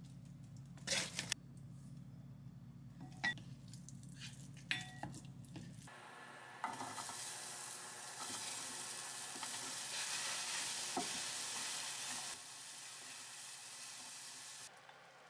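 A few light clicks of a utensil against a glass bowl. Then, about six seconds in, diced vegetables sizzle in a hot pot and are stirred with a spatula; the sizzle eases near the end and cuts off suddenly.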